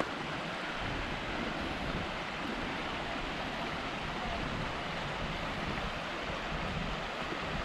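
Steady rushing of a rocky mountain stream, mixed with wind buffeting the microphone.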